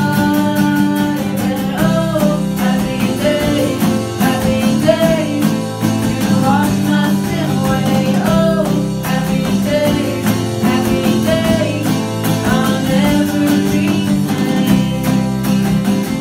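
Live worship band playing a song: male and female voices singing the melody over strummed acoustic guitars, bass guitar and a drum kit keeping a steady beat.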